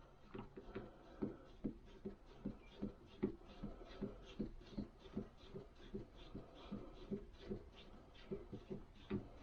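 Faint, regular clicking, about two or three clicks a second, as the adjusting screw of a blank-cartridge crimp die is turned into the die.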